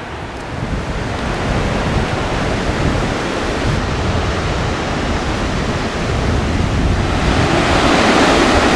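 Waterfall: a steady rush of falling water that grows louder toward the end.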